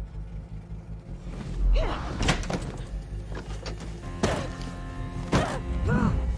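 Horror film soundtrack: a low, droning score punctuated by several sharp impact hits.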